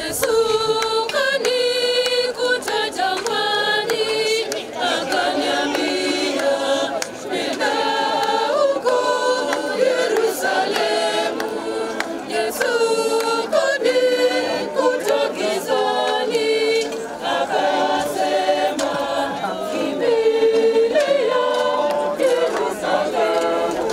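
A group of voices singing a hymn together, unaccompanied.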